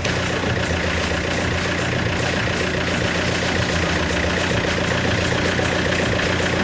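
Off-road 4x4 engine idling steadily with an even, rapid pulse.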